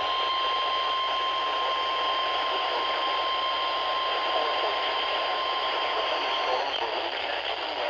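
Radio static: a steady hiss from a broadcast receiver between transmissions, with a thin steady whistle running under it that stops about six and a half seconds in.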